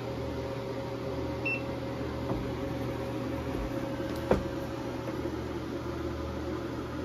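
Steady electrical hum with fan noise from a solar inverter running a load of about 1500 W off a 48 V server-rack battery. A short high beep comes about a second and a half in, and a sharp click a little past four seconds.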